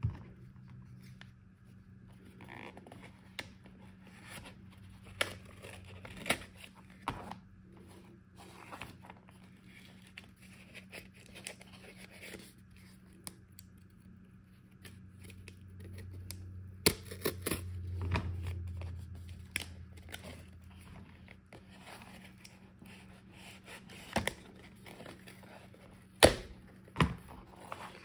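Scissors cutting through the end of a cardboard mailing envelope, with scattered short snips, sharp clicks and paper-and-cardboard rustling as the package is handled and opened.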